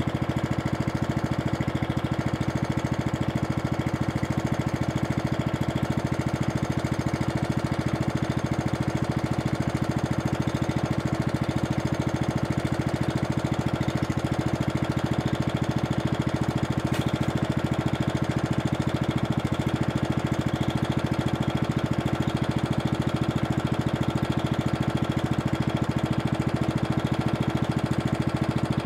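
A Toro Super Recycler walk-behind mower's 6 hp Briggs & Stratton single-cylinder engine, running steadily at constant speed, unattended.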